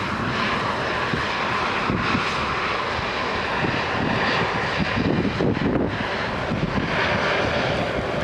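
The four Wright R-1820 Cyclone radial engines of a Boeing B-17G Flying Fortress running steadily as the bomber flies, a continuous even engine noise.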